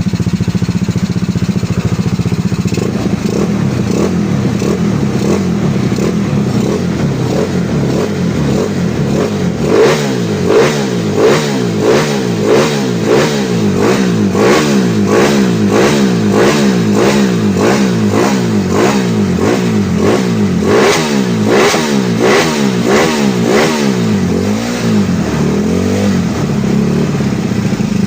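Carbureted Yamaha Mio scooter's single-cylinder four-stroke engine idling, then revved in quick, even throttle blips, about three every two seconds, before settling back toward idle near the end.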